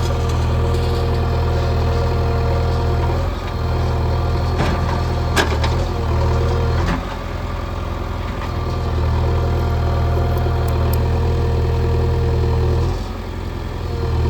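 Diesel engine of a JCB 3DX backhoe loader running while it loads mud, getting louder and dropping back a few times as the machine works, with a steady whine over it. A few sharp knocks come between about four and seven seconds in.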